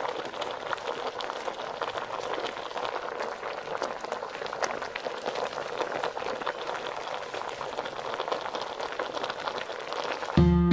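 A pot of dinengdeng vegetable soup boiling: a steady, dense crackle of small bursting bubbles in the broth. Near the end, plucked guitar music comes in over it.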